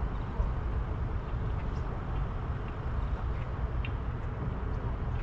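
Steady low rumble of wind buffeting a GoPro microphone mounted on a moving boat, with a few faint short chirps above it.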